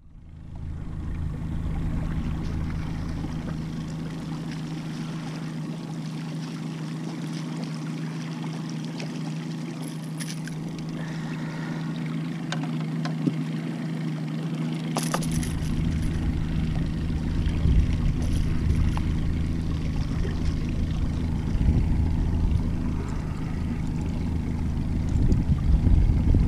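Boat motor running steadily at trolling speed, a low even hum, with a couple of light clicks about ten and fifteen seconds in.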